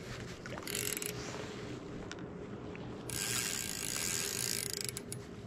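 Fly reel's click-and-pawl drag ratcheting in two bursts, a short one about a second in and a longer one of about two seconds from about three seconds in, while a hooked brown trout is being played on the line.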